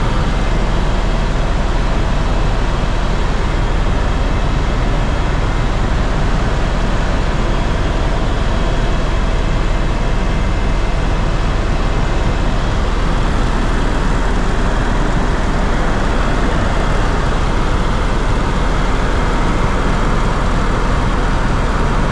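Aircraft engine and airflow noise heard from inside the cabin in flight: a loud, steady drone, deepest at the bottom, with a few faint steady tones above it.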